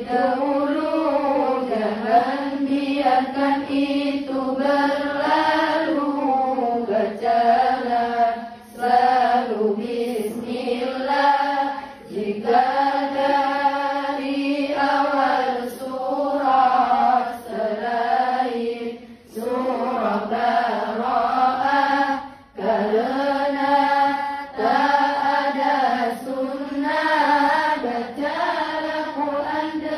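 A group of girls chanting sholawat, Islamic devotional praise of the Prophet, together in unison. The melody is drawn out in long phrases, with short breaks for breath every few seconds.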